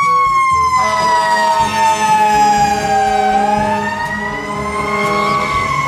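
Fire engine siren sounding a slow wail: one long tone that sinks gradually through the first half and climbs back up near the end, with a steady low hum underneath.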